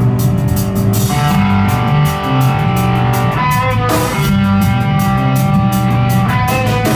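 A rock band playing live: electric guitar, bass and drum kit in the instrumental intro, with no vocals yet.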